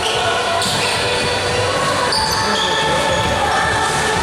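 Basketball being played on an indoor court: the ball bouncing and many high, short squeaks, with voices in the background.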